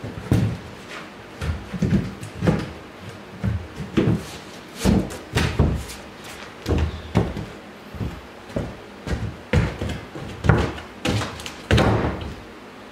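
Oriented strand board sheet, laid loose on an uneven concrete floor, thudding and knocking as it is pressed down by hand and then stepped on. There is a run of separate thumps, roughly two a second.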